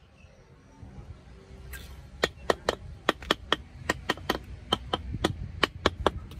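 Flat metal hand tool tapping against a cast cement baluster: a quick run of sharp taps, about four a second, starting about two seconds in.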